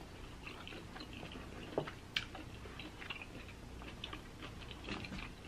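Faint chewing of lobster tail meat, close to the microphone, with a few small clicks scattered through it.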